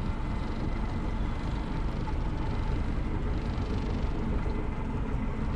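Motorboat engine idling with a steady low rumble.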